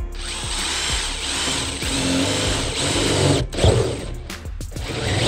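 Cordless drill running, boring a hole through a car's sheet-metal roof, with a loud knock about three and a half seconds in. Background music plays along.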